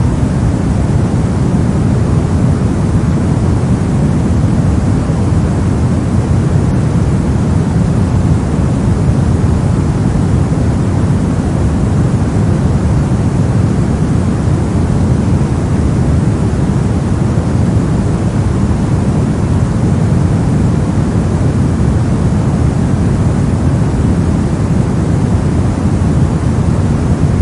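Steady soft noise for sleep: an even, unchanging rush weighted toward the low end, with little hiss up top.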